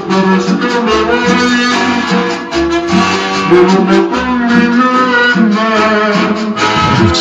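Cumbia music playing from a 45 rpm vinyl single on a turntable, with melody instruments over a moving bass line.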